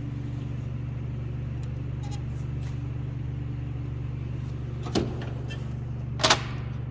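Metal toolbox drawers and tools clacking: one sharp clack about five seconds in and a louder double clack near the end. A steady low hum runs underneath.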